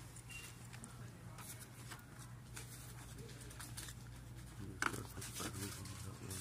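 Quiet indoor room tone: a steady low hum under faint rustles and handling clicks, with one sharper click about five seconds in.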